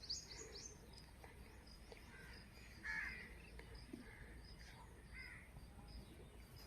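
Faint bird calls, a handful of short calls with the loudest about three seconds in, and small high chirps at the start.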